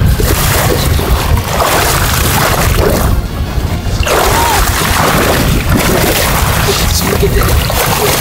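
Heavy wind noise on the microphone and water sloshing against the boat's hull, with background music underneath.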